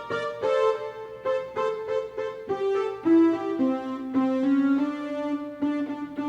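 Electronic keyboard playing a forró melody, the notes changing several times a second over sustained lower notes.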